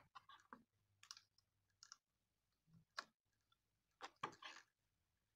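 Faint clicks and small knocks of a finned metal heat sink being handled and seated by hand onto an induction cooktop's circuit board. One sharp click comes about three seconds in, and a short cluster of knocks follows about a second later.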